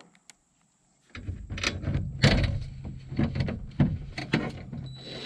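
Sharp knocks and clanks of metal handling in a lift basket over a steady low machine hum, starting after about a second of silence.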